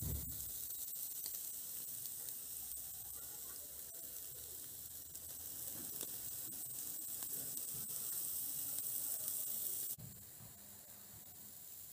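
Marinated pork pieces on a skewer sizzling over a charcoal grill: a steady hiss with a few crackles near the start, turning quieter about ten seconds in.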